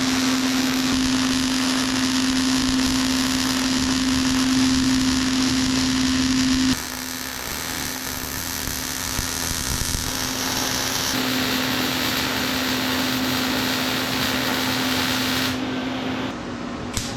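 Welding arc on sheet steel: a continuous crackling hiss over a steady low hum. The sound shifts in level about seven seconds in and again about eleven seconds in, and drops back near the end.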